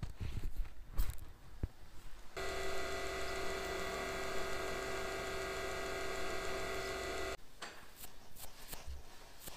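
Small metal clicks as a carbide drill bit is fitted into the collet of a watchmaker's lathe, then the lathe motor runs with a steady whine for about five seconds while drilling into a watch crown to remove the broken stem thread inside it. It stops abruptly, and light brushing scratches follow.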